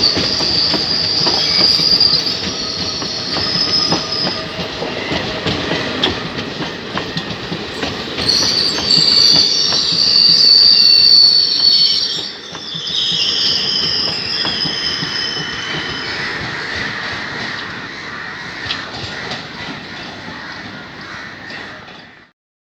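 Express passenger train braking hard into a station, wheels and brakes squealing in high, shifting tones over the rumble and clatter of the coaches. The squeal is loudest midway, then the noise dies down as the train slows to a halt.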